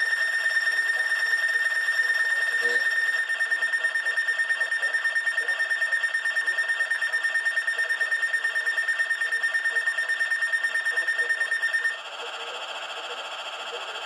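Weather radio's alert alarm sounding for a Required Weekly Test: a loud, single high-pitched beep repeating very rapidly. It cuts off suddenly about twelve seconds in, and quieter broadcast audio from the radio's speaker follows.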